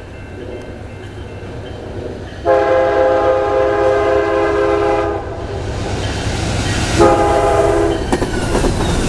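Amtrak Genesis diesel locomotive's horn sounding as the Auto Train approaches at speed: one long blast, then a short one about two seconds later, over the rising rumble of the train. Near the end the locomotive rushes past and the sound grows louder.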